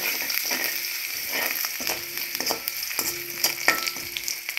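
Chopped garlic sizzling in hot coconut oil in an aluminium wok, a steady hiss with scattered sharp crackles. This is the tempering stage, with the garlic frying toward golden.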